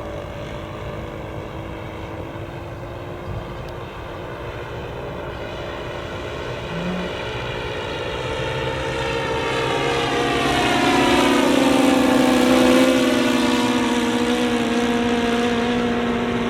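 Propeller engines of a radio-controlled model Cessna 337 Skymaster running in flight. The sound grows louder as the plane comes close, and the pitch drops as it passes, about ten to eleven seconds in.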